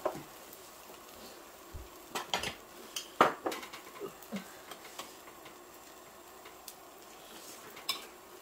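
Metal spoons clinking and scraping against a stainless steel tray of fried rice, in scattered sharp taps with the loudest about three seconds in, over a faint steady sizzle from the hot pan.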